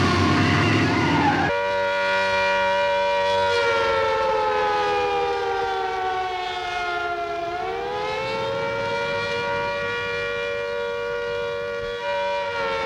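A civil defense siren wailing: a steady multi-tone note that slowly falls in pitch, swings back up around the middle, and then holds. It is preceded by about a second and a half of loud, noisy commotion that cuts off abruptly.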